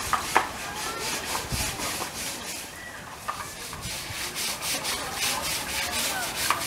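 Rapid rhythmic scraping or brushing strokes, about four to five a second, with a short pause about halfway through and a couple of sharp clicks near the start.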